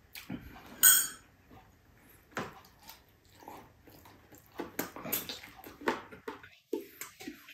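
Close-up eating sounds: a man chewing and smacking his lips on a mouthful of sarciado pork spareribs, in short irregular bursts. About a second in there is a sharp clink, the loudest sound, as a glass mug is set down on the table.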